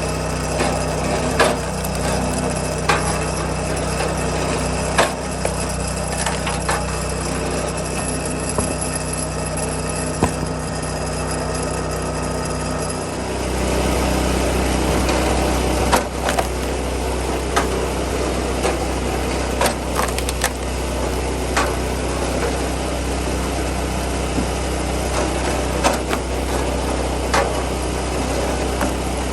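A small engine running steadily while firewood is split, with sharp wooden knocks and cracks of splitting and tossed pieces every second or two. The engine note grows louder and deeper about halfway through.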